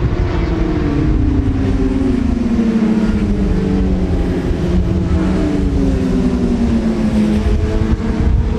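Racing sportbike engines running at speed on a circuit, with a dense low rumble; one engine note falls slowly in pitch over several seconds in the middle.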